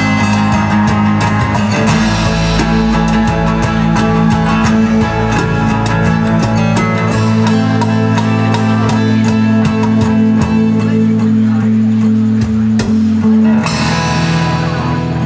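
Live band jam of guitars, bass and drums: strummed and picked guitar chords over held bass notes and light drum hits, without singing.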